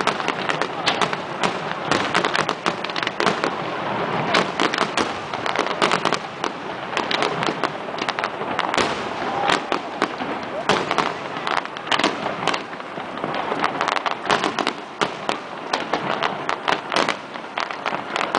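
Fireworks display: a dense, continuous run of sharp bangs and crackles one after another with no let-up.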